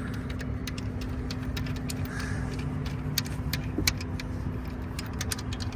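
Scattered light metallic clicks and clinks of a loosened 14 mm alternator mounting bolt being worked out of its bracket by hand and tool, over a steady low rumble and hum.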